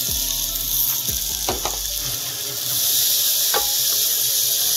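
Washed rice sizzling in hot oil in a pot as it is spooned in and stirred. The sizzle grows louder about three seconds in.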